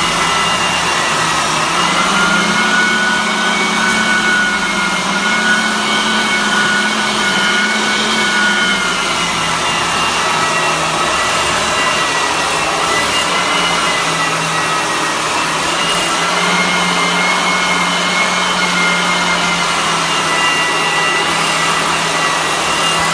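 Floor sanding machine running steadily: a continuous motor whine over a broad rushing hiss, its pitch wavering slightly.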